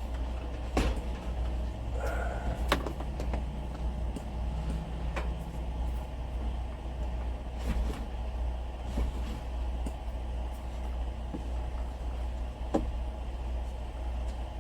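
A few scattered knocks and clicks from a swivel shelf being handled and set in place, with a brief squeak about two seconds in, over a steady low hum.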